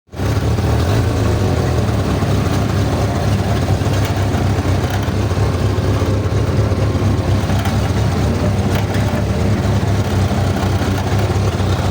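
Engine of a 4x4 off-road vehicle running steadily with a low hum.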